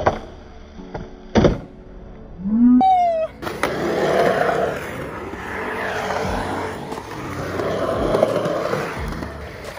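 Skateboard wheels rolling on concrete in a bowl, a steady rolling rumble that swells twice as the board carves up the walls. Before it, two sharp clacks of the board in the first couple of seconds and a short rising sound about three seconds in.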